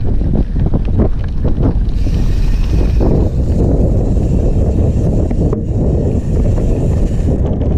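Heavy wind buffeting on a helmet camera's microphone as a mountain bike rolls fast down a loose, stony gravel trail. The bike rattles and knocks over the stones for the first couple of seconds, then a steadier hiss of tyres on loose grit follows.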